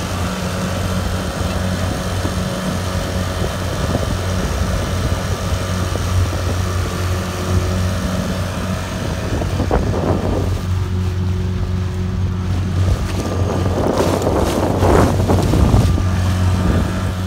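Small Mercury outboard motor running steadily, pushing a small inflatable boat along, with rushing water from the wake and wind on the microphone. The water and wind noise surges louder a few times, most strongly near the end.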